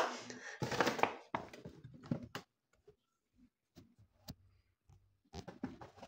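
Hands handling takeaway food containers: scattered light clicks and knocks, two sharp clicks about four seconds in, and quiet in between.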